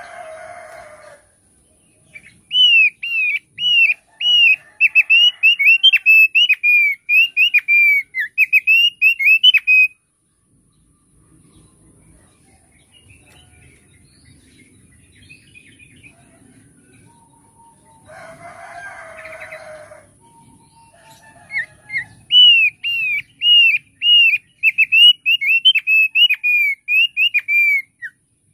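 A thick-billed heleia (opior paruh tebal) singing two long phrases of rapidly repeated down-slurred whistled notes, several a second, each phrase running about seven or eight seconds. A hoarse chicken call sounds twice in the background: briefly at the start, and again for about two seconds between the phrases.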